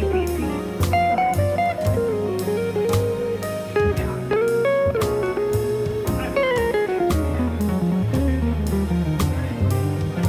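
Background music: a bluesy guitar melody with runs stepping down in pitch, over a steady beat of about two strokes a second.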